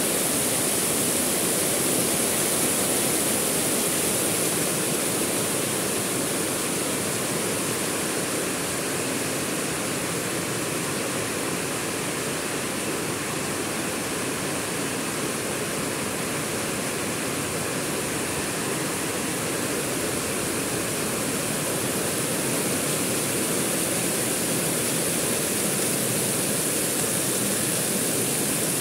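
Heavy rain pouring down steadily, an even hiss that eases a little in the middle and builds again.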